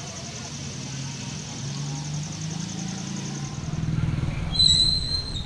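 A motor vehicle engine running with a low pulsing hum that swells toward the end, under a steady high pulsing hiss. A short, sharp high whistle-like tone sounds near the end.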